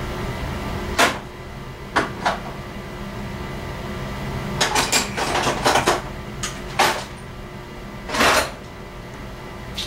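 Metal hand tools clinking and clattering in a string of sharp knocks, with a short scraping rasp near the end, as tools are rummaged through in search of needle-nose pliers. A low steady hum runs underneath.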